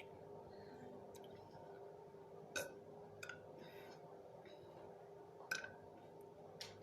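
Quiet room with a steady low hum and four short, faint clicks or smacks spread through it.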